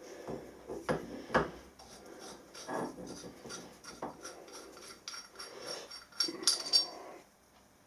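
Metal parts of a pipe cutter being handled and fitted together: rubbing and scraping with a couple of sharp knocks early on. A cluster of ringing metal clinks comes near the end.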